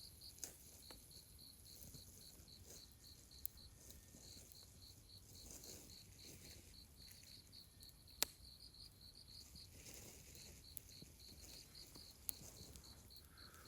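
Crickets chirping faintly in a fast, even pulse, about four or five chirps a second. A few sharp pops from the campfire cut through.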